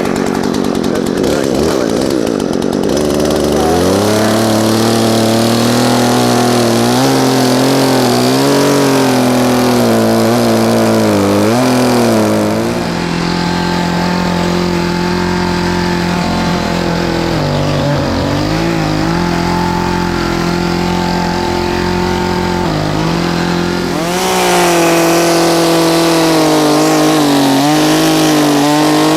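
Two-stroke chainsaw cutting a felling notch into a tree trunk, its engine pitch repeatedly sagging and recovering as the chain bites into the wood under load.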